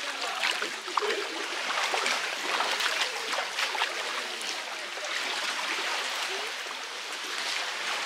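River water running and splashing: a steady rush with many small, sharp splashes.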